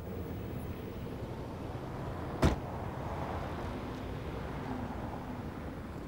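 A taxi's car door slams shut once, a single sharp thud about two and a half seconds in, over a steady low rumble of street traffic.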